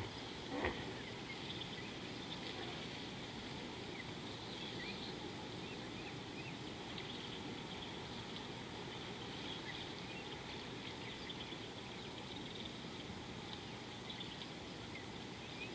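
A steady chorus of insects, a high-pitched pulsing that repeats evenly and rapidly, over a faint outdoor hiss. Faint short chirps are scattered through it, and there is a single short knock about a second in.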